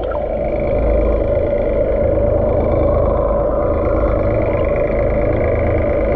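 Steady muffled rush of churning water with a low rumble under it, as picked up by a camera held just beneath the sea surface beside a running boat.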